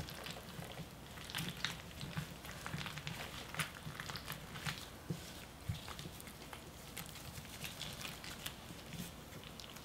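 Faint, irregular wet squelches and small crackles as gloved hands press and fold chili-paste kimchi filling into a salted napa cabbage leaf.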